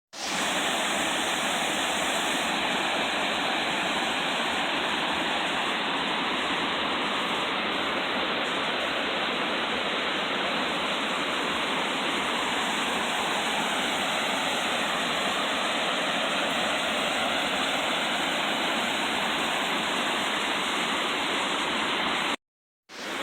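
Waterfall rushing steadily, a constant roar of falling water. It cuts out for a moment near the end and comes back a little quieter.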